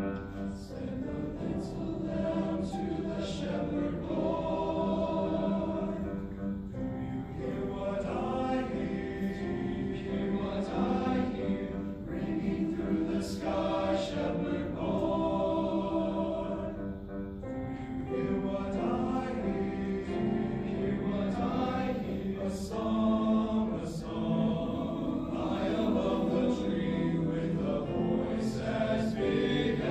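High school choir singing in several parts, sustained chords moving phrase by phrase, with short breaks between phrases.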